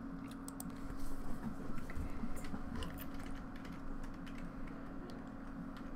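Computer keyboard typing: a run of irregular keystrokes, busiest in the first half and thinning out after.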